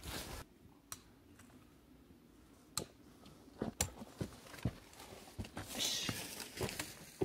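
Hiking boots stepping on a rocky dirt trail: scattered crunches and clicks of footfalls on stones, with a brief rustle about six seconds in.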